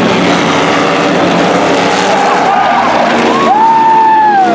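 Several demo race cars' engines running loud together as they lap the oval. About three and a half seconds in, a high whine rises sharply and then slowly falls away.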